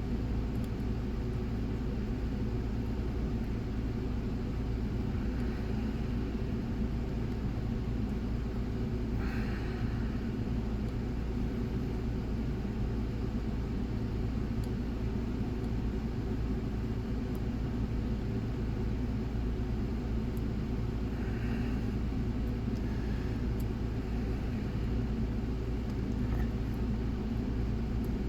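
A steady low background rumble throughout, with a few faint, brief scratches and clicks from a pick tool turning the discs of a disc detainer lock.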